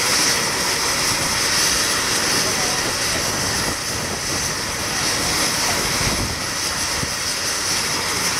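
AH-64 Apache helicopter running on the ground with its main rotor turning: its twin turboshaft engines give a steady high whine over the rotor noise.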